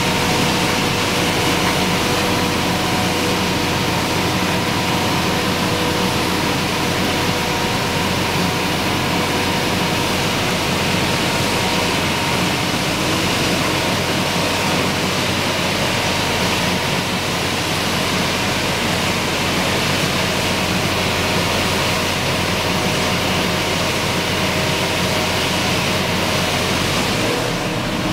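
Tractor engine and potato harvesting machinery running steadily under load, a continuous mechanical noise with a faint steady hum.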